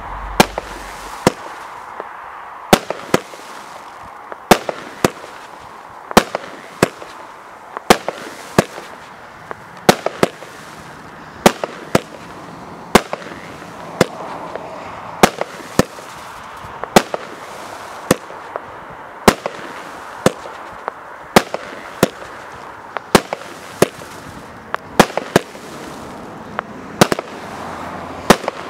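A 25-shot, 1-inch-calibre consumer firework cake firing in sequence, with sharp bangs coming roughly one or two a second over a steady hiss between the shots.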